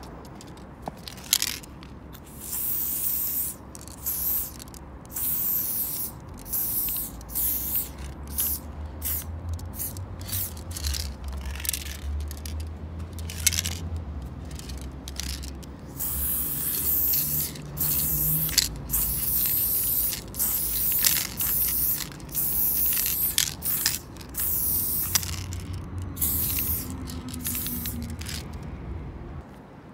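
Aerosol spray-paint can hissing in many separate bursts as paint is sprayed onto a wall. Some bursts are short puffs and others are held for a second or two, with brief pauses between them.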